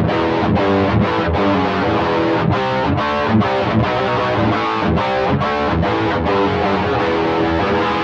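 SG-style electric guitar played through an Xvive T1 Golden Brownie overdrive pedal, with the drive at about two o'clock for a fairly high-gain distorted tone. A riff mixes held chords and notes with sharp picked attacks at uneven intervals.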